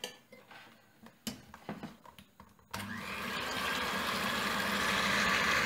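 Electric hand mixer switched on about halfway through, its beaters whisking egg whites in a ceramic bowl with a steady whirr that slowly grows louder. This is the start of beating the whites with cream of tartar and sugar to stiff peaks. Before it there are a few light knocks as the mixer is set in the bowl.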